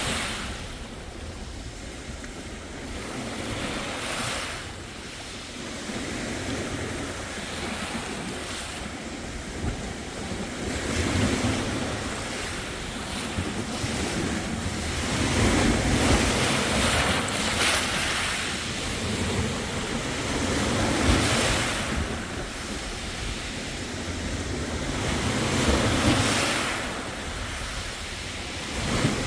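Sea waves breaking and washing onto the beach, the surf rising and falling in several surges.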